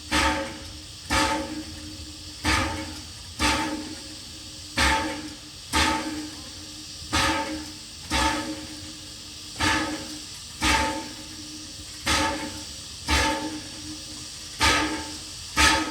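Train wheels clacking over rail joints in a steady rhythm, about one clack a second, falling into pairs, over a constant low hum from the train.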